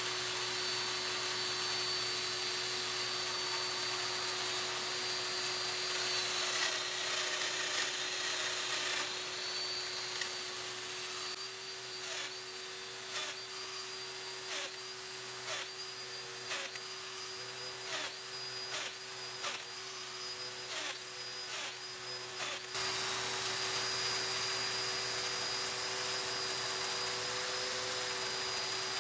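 Festool Domino joiner running with a steady high whine and low hum as it cuts mortises in wood. Through the middle stretch comes a run of sharp ticks, about one a second.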